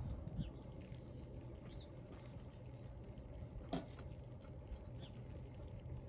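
Faint outdoor ambience: a steady low rumble with a few short, high, falling bird chirps, and one faint click about midway.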